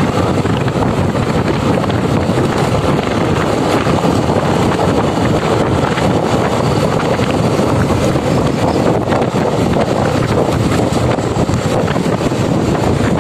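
Wind rushing over the microphone of a moving motorcycle, over the bike's running engine and tyre noise; a loud, steady rush.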